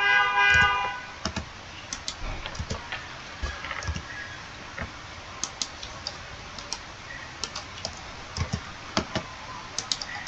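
Computer keyboard keys clicking: scattered single clicks at irregular intervals. During the first second a louder held sound with several steady tones carries on, then stops.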